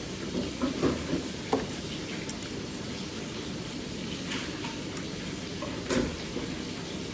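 Eating at close range: a few short crunches and clicks in the first second and a half, and another about six seconds in, over a steady hiss.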